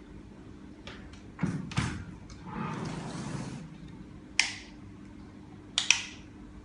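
Handling noise from a portable glass edge grinder being picked up and held: a few separate knocks and sharp clicks, with a brief scraping rustle between them. The motor is not running.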